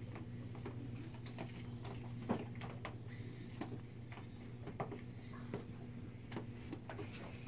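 Hands kneading and stirring wet slime in a plastic tub: scattered small sticky clicks and squelches at an uneven pace, the sharpest a little over two seconds in. A steady low hum runs underneath.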